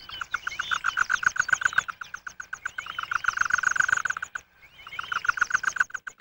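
Snowy owl chicks calling at the nest: a fast rattling run of pulses with higher chirping notes over it, breaking off for a moment about four seconds in, then starting again.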